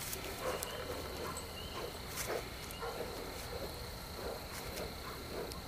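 Black and Tan coonhound worrying a raccoon it has caught: faint, short, rough growling sounds about twice a second. A steady high insect trill runs behind them.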